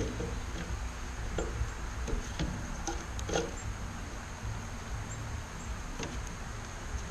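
Birds feeding: scattered light pecks and taps, irregular and loudest about three seconds in, with a few faint high chirps over a steady low hum.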